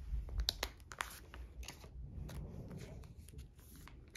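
Clear plastic photocard sleeve scraping and crinkling as it is slid into a binder pocket, a string of short clicks and rustles. Beneath it, dull low thumping from upstairs neighbours, heaviest in the first second.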